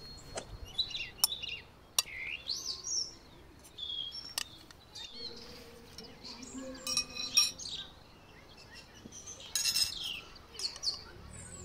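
Small birds chirp and sing in short, quick phrases. A spoon clinks sharply several times against a glass dish and china plates as food is served.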